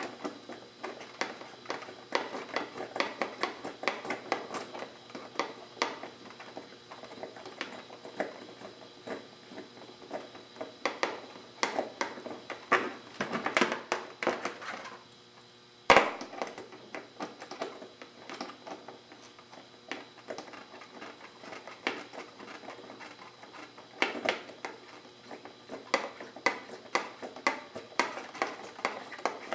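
Socket ratchet clicking in repeated short runs while a fairing bolt on a motorcycle is turned, with small metal taps of the tool and one sharp knock about sixteen seconds in.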